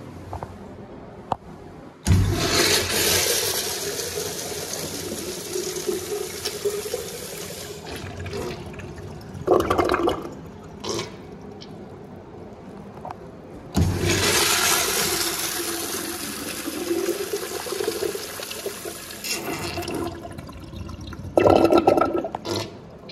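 Two flushes of 2000s Crane Manhattan wall urinals on manual flush valves, each a sudden rush of water that fades over several seconds. Each flush ends in a short loud gurgle as the bowl drains.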